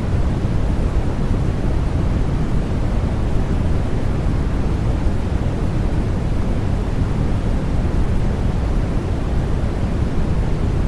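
Steady white noise for baby sleep: an even, unbroken hiss weighted toward the low end, giving a deep rushing sound.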